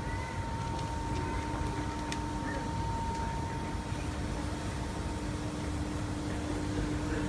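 Steady outdoor city background noise: a low rumble and hiss with a faint constant hum running through it, and a single faint click about two seconds in.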